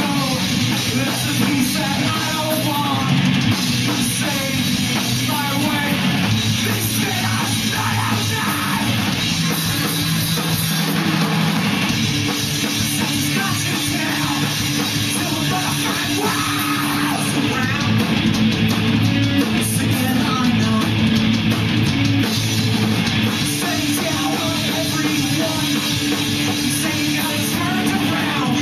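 A rock band playing live and loud: distorted electric guitars over a drum kit, a dense, unbroken wall of sound.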